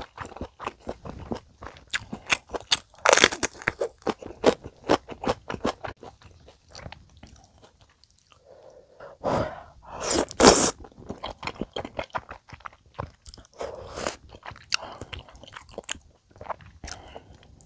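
A person chewing mouthfuls of spicy stir-fried chicken dakgalbi with melted cheese, a close, steady run of short clicky chewing sounds, with two louder bursts about nine and ten seconds in.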